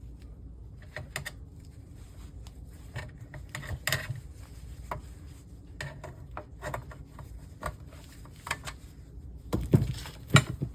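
Wire cutters snipping through wires inside an LCD monitor, among scattered clicks and light metallic clinks of tools and parts being handled, with a cluster of sharper snaps near the end.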